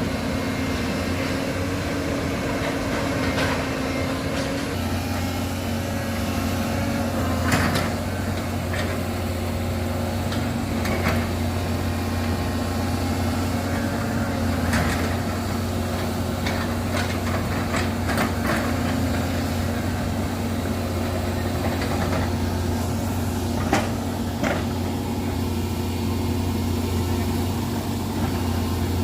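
Heavy excavator's diesel engine running steadily, its low hum growing stronger about five seconds in, with several short sharp knocks scattered through.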